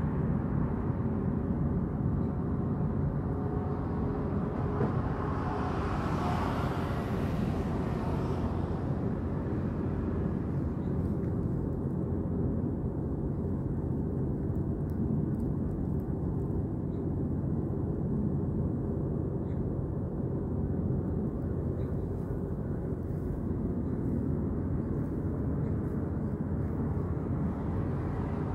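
Steady low rumble of outdoor background noise, swelling briefly about six seconds in.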